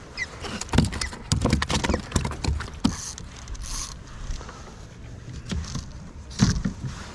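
A flurry of sharp knocks and taps on a plastic kayak hull as a just-landed redfin (English perch) is swung aboard and flaps in the footwell while being handled, then one heavier thump about six and a half seconds in.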